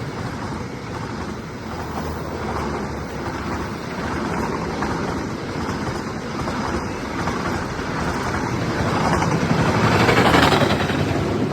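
Jayakarta passenger train passing: a steady rush of wheels on rails and rolling coaches, growing louder toward the end.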